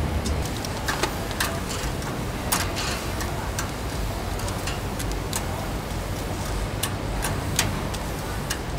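Scattered sharp clicks and ticks at a charcoal grill where live mantis shrimp lie on the metal grate and are handled with metal tongs, irregularly spaced over a steady low rumble.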